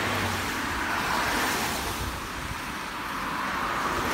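Rain ambience on wet pavement: a steady hiss that swells and eases gently.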